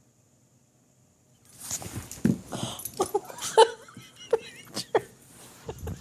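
Boxer dog whimpering and giving short yips in his sleep, in a quick irregular series that starts about a second and a half in.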